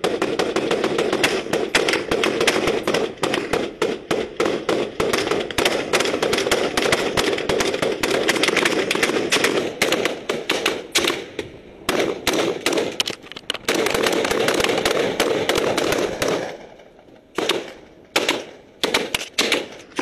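Rifle fire from a ship's rail at an approaching pirate skiff: rapid, overlapping shots for about sixteen seconds, then a few scattered single shots near the end.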